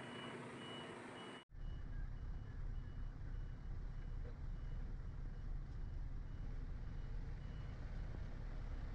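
Reversing alarm of an articulated truck beeping about twice a second as the truck backs up, over the low rumble of its engine, which grows louder about a second and a half in.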